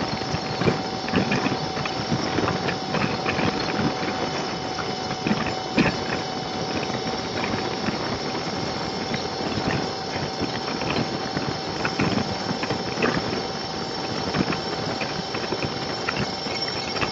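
Motorcycle at freeway speed heard through a low-mounted dashcam: steady wind and road rush with irregular knocks and rattles from buffeting, under a constant thin high tone.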